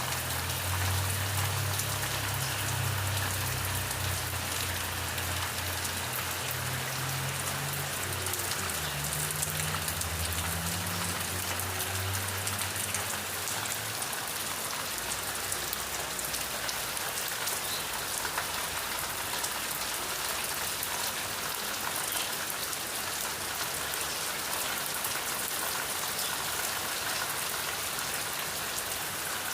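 Steady rain falling and pattering on surfaces. A low rumble sits beneath it for the first half, then stops.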